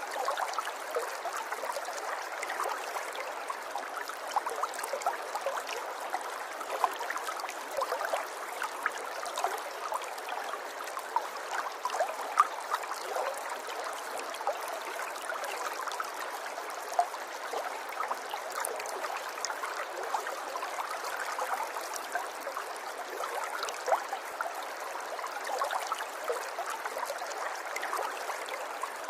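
River water flowing over stones in a shallow stretch: a steady babble full of small splashes and gurgles, with no deep rumble.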